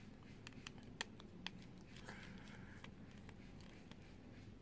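Faint, irregular small clicks of a small Phillips screwdriver working the tiny screws of a Samsung Galaxy S7 Edge's inner frame, with a brief soft scrape about two seconds in.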